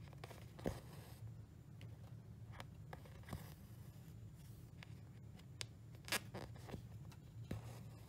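Cross-stitch needle poking through aida fabric with sharp clicks and embroidery floss drawn through after it with short rasps, several stitches in a row. A low steady hum runs underneath.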